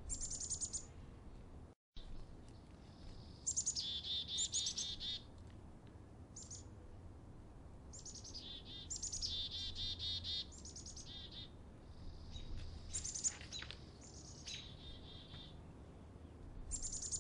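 Black-capped chickadees calling: clusters of rapid, repeated high chirping notes that come in bursts every second or two, with a brief cut in the sound about two seconds in.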